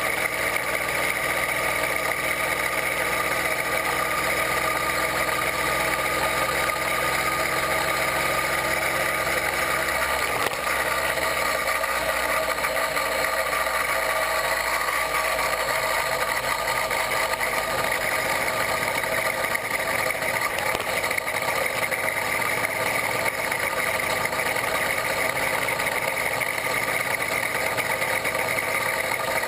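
A 66/80cc Chinese two-stroke bicycle engine kit running at a steady cruising speed, a constant high-pitched drone with no change in pitch.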